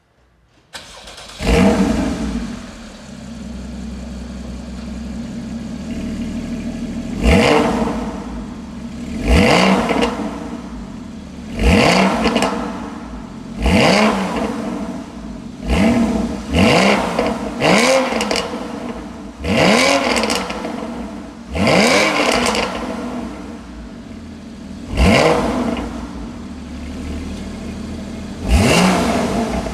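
2014 Porsche Boxster GTS naturally aspirated flat-six, through its optional sports exhaust, starting up. It flares loudly about a second and a half in and settles to a steady idle. It is then blipped on the throttle about ten times, each rev rising sharply and falling back to idle.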